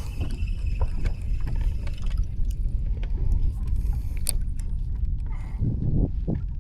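Steady low wind rumble on the microphone, with scattered light clicks and taps.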